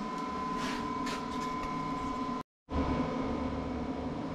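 Steady shop background hum from a fan or running machinery, with a thin steady whine over it. The sound drops out briefly about halfway through, at an edit cut.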